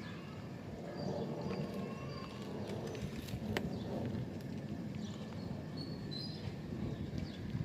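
Light clicks and taps of plastic MC4 solar connector parts being handled and fitted, over steady outdoor background noise.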